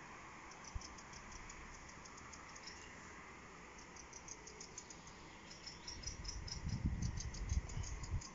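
Wind gusting across the microphone as an irregular low rumble for the last two seconds or so, over a steady run of faint, quick, high-pitched chirping.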